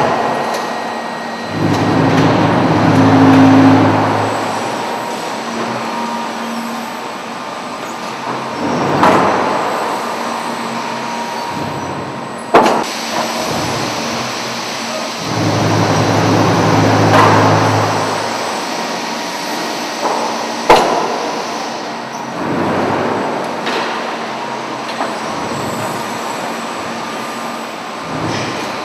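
Handling machinery of a concrete block plant at work: twice an electric drive hums for a few seconds as it runs up and down. Between runs there are swelling rushes of noise and a couple of sharp metallic clunks.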